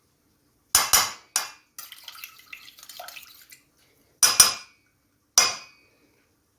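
Kitchen utensils and dishes clinking: three sharp clinks about a second in, a stretch of light scraping and rattling, then a few more clinks.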